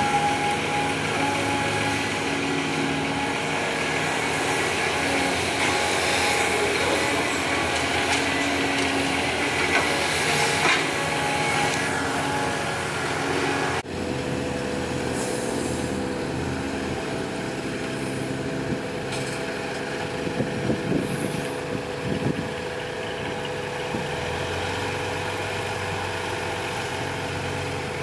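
Diesel engine of a CAT 320D hydraulic excavator running steadily as it digs and swings loads of soil, with a few short clanks. The sound changes abruptly about halfway through.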